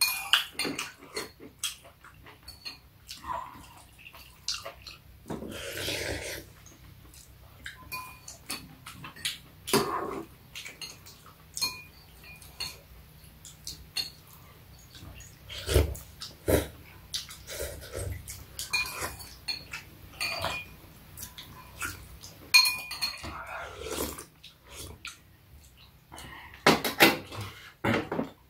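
Eating sounds at a table: metal spoons clink now and then against ceramic soup bowls, some strikes ringing briefly, between mouth sounds of slurping and chewing soup.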